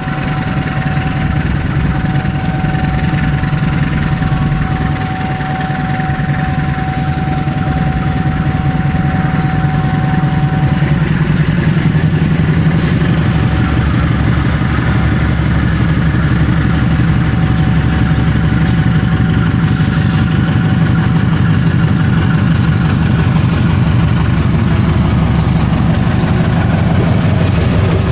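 Diesel engine of a CC 201 diesel-electric locomotive running under load as it hauls a passenger train out of the station. It grows louder after about ten seconds as the locomotive draws close and passes by. A thin steady whine sounds over it for roughly the first ten seconds.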